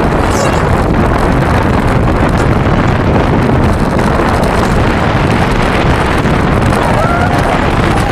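Steady wind noise buffeting the microphone of a camera riding on a soapbox car at speed, over the rumble of the unpowered cart rolling down the asphalt.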